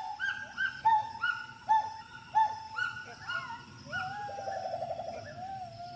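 Gibbon calling: a series of short pitched hoots, each swooping up and down, about one every 0.7 seconds. About four seconds in comes a quick bubbling trill, then a longer held note.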